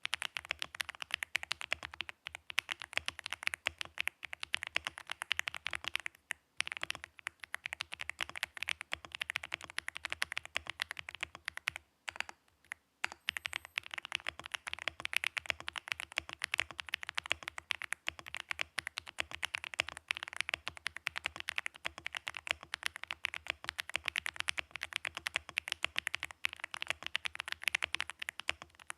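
Aula F75 mechanical keyboard with Gateron Quinn tactile switches being typed on steadily and fast, with brief pauses about six and twelve seconds in.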